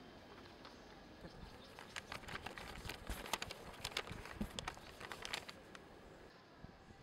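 Faint crackle and rustle of printed paper flyers being handled and leafed through, in irregular crackles from about a second in until shortly before the end.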